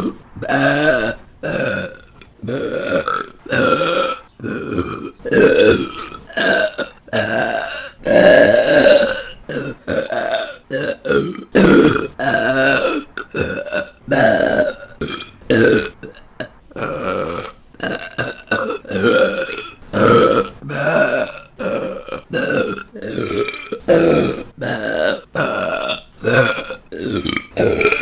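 A woman's burps, dozens of them in quick succession, mostly short with a few drawn out to a second or so, divided by brief gaps.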